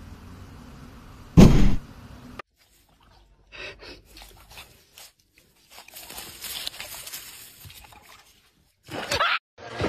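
A single loud thump about a second and a half in, followed by quieter scattered rustling and scraping.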